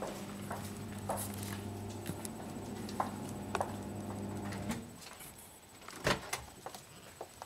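A steady low electrical hum with scattered clicks and knocks. The hum cuts off about two-thirds of the way through, and a louder knock follows a moment later.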